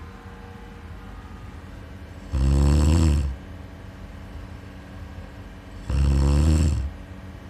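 A sleeping person snoring: two loud snores of about a second each, roughly three and a half seconds apart, with a faint steady hum between them.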